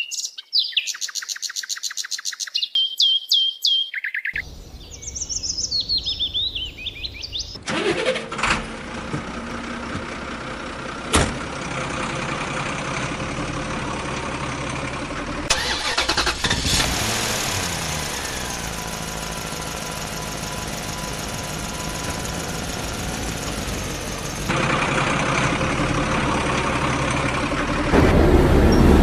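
Birds chirping for the first few seconds, then a truck engine sound effect starts about eight seconds in and runs steadily, its pitch sliding around the middle and growing louder near the end.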